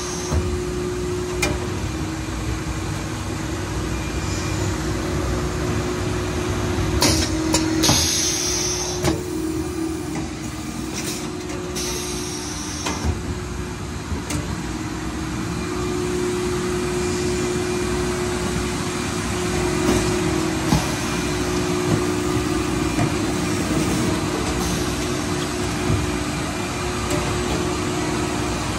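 Blow-fill-seal packaging machine running: a steady mechanical hum with a held tone, broken a few times by sharp clicks and short hisses.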